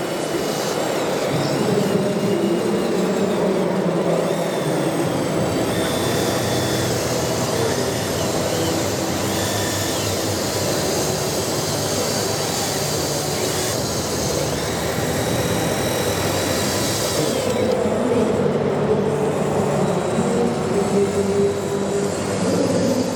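Motors and hydraulic pumps of large radio-controlled construction models running, a steady mechanical whir with pitched whines that shift now and then as the machines work.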